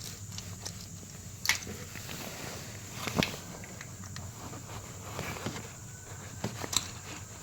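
Light clicks and taps of a spark plug and hand tools being handled, with sharper metal knocks about a second and a half in, about three seconds in and near the end, over a steady low hum.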